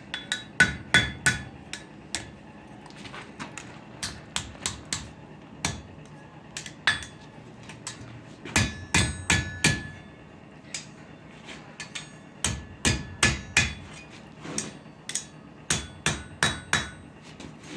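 Blacksmith's hammer striking metal in irregular runs of blows, some leaving a short metallic ring, as the second half of a metal tutu is worked.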